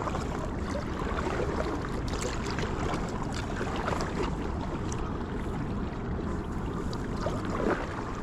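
Water lapping and splashing against a kayak on a river, with small irregular drips and splashes over a steady rush of water and wind noise.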